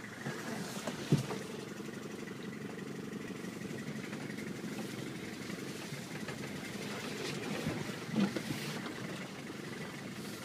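Four-wheel-drive vehicle's engine running steadily, heard from inside the cabin while driving off-road, with a short sharp knock about a second in.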